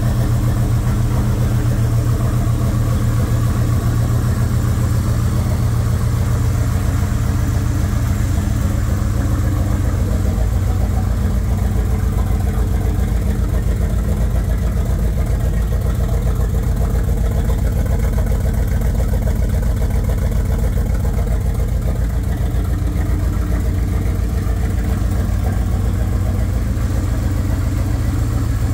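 Vehicle engine idling steadily through a new exhaust system with no catalytic converter, a low, even idle that doesn't change pitch.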